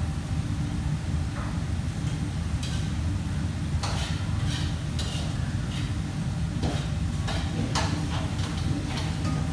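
Commercial kitchen background: a steady low machine hum, with a scattering of short, sharp clinks and clatters from about a third of the way in.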